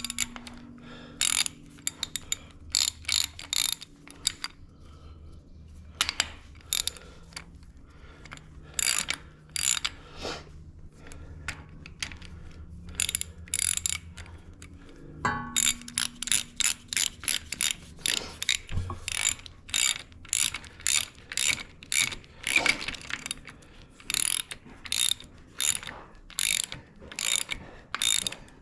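Hand ratchet wrench being worked, its pawl clicking in short rapid runs of strokes separated by brief pauses.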